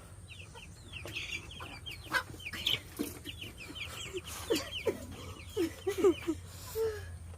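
Chickens clucking, with runs of quick high calls and a few short knocks and rustles.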